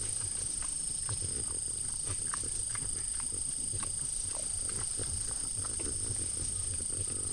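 White-lipped peccary feeding at fruit bait, making low grunts and snuffles several times a second, with scattered small clicks.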